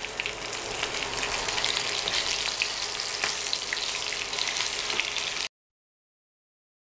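Marinated boneless chicken pieces shallow-frying in mustard oil, sizzling with a steady crackle as they are turned with a wooden spatula. The sound cuts off abruptly about five and a half seconds in.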